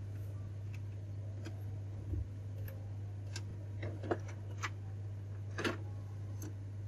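HP Ink Tank 315 printer starting up again after a new printhead has been fitted: its mechanism gives a run of irregular sharp clicks and ticks over a steady low hum.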